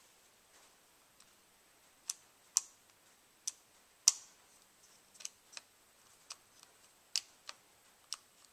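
About a dozen sharp, short clicks at uneven intervals, the loudest about four seconds in.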